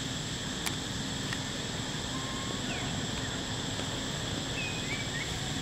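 Steady outdoor background: a constant low rumble under a steady high-pitched whine. There is a single sharp click about a second in, and a few faint short chirps or squeaks in the second half.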